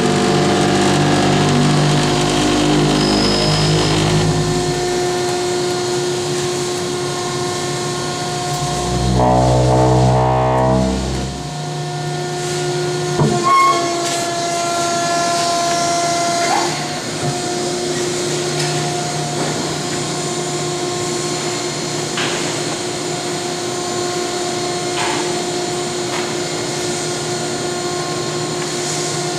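Selco HV-615 horizontal baler's hydraulic power unit, a 15-hp three-phase electric motor driving the pump, running with a steady hum. The sound grows deeper and louder for about two seconds around nine to eleven seconds in, followed by a sharp knock about thirteen seconds in.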